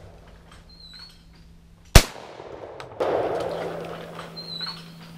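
A single 12-gauge shotgun shot about two seconds in, a sharp crack with a short tail. About a second later a rushing noise starts abruptly and slowly fades.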